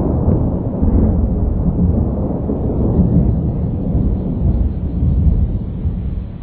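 Thunder rumbling: a long, low roll that fades near the end.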